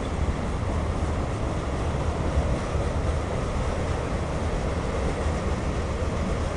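Freight cars of a Norfolk Southern mixed freight train rolling past: a steady rumble of steel wheels on the rails, heaviest in the low end.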